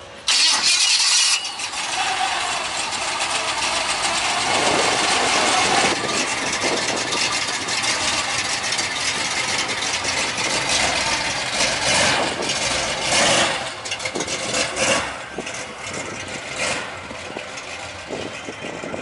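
Oldsmobile Cutlass engine started, catching with a loud burst, then running and revved up several times.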